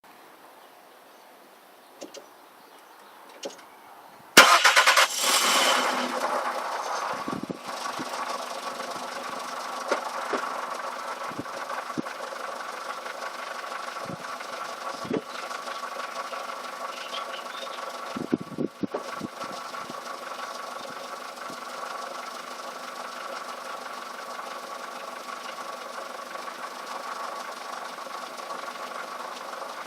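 A Volkswagen Polo's engine is cranked and catches about four seconds in, after two short clicks, then settles into a steady idle with a few light knocks.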